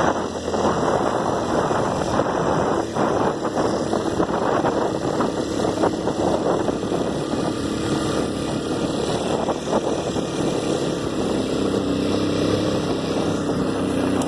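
Honda Tornado 250 single-cylinder motorcycle engine running steadily while riding, with a steady rushing noise over it.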